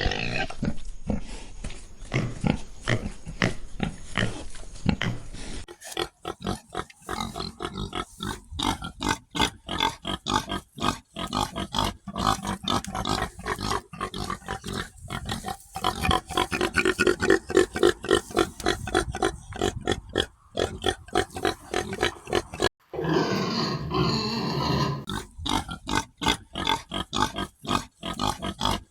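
Pigs grunting and oinking in many short, rapid grunts, with the sound changing abruptly a couple of times as different recordings are joined.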